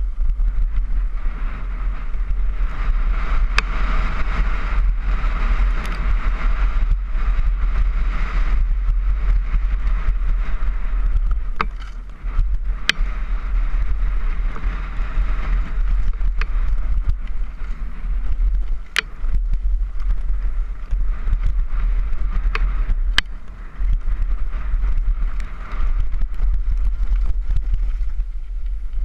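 Wind buffeting a helmet-mounted camera's microphone during a fast downhill mountain-bike descent, over steady tyre noise on a loose gravel track. Several sharp clacks stand out as the bike rattles over bumps.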